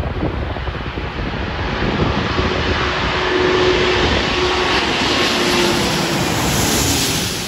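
A four-engine jet airliner on approach with its landing gear down, passing low overhead. The jet engine noise builds and is loudest near the end, with a faint steady whine under it.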